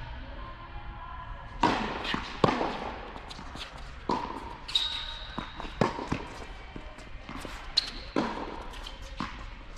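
A tennis rally on an indoor hard court: sharp racket-on-ball strikes and ball bounces every second or two, the loudest about two and a half seconds in, with a couple of short high shoe squeaks on the court surface.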